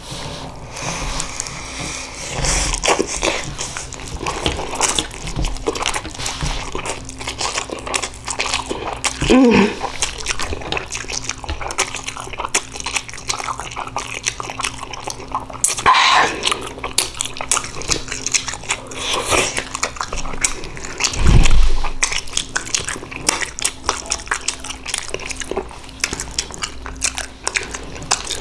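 Close-up mouth sounds of a person eating ramen noodles and crawfish: irregular wet chewing, smacking and slurping. About two-thirds in comes one short, low sound that falls in pitch and is the loudest moment.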